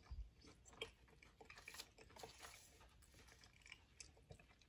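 Faint chewing of a soft banana fritter, with small scattered mouth clicks.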